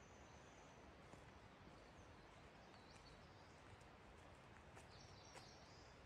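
Faint forest ambience: a steady hiss with thin, high bird calls, a held whistle in the first second, a few chirps about three seconds in, and a short cluster of calls near the end.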